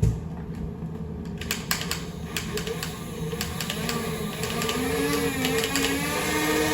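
Motor of a battery-powered Nerf blaster running with a steady hum, with a knock at the very start and a run of sharp mechanical clicks from about a second and a half in.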